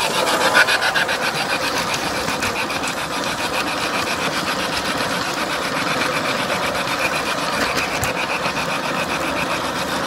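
Garden-railway model train running along outdoor track, heard from a camera riding on board: a fast, even mechanical rattle of its wheels and drive on the rails.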